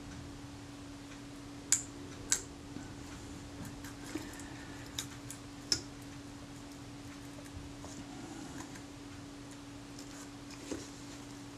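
A few sharp, scattered clicks and ticks as brittle leatherette is prised off the metal body of a Kodak Retinette II camera, the loudest two close together a couple of seconds in. Under them runs a steady low hum.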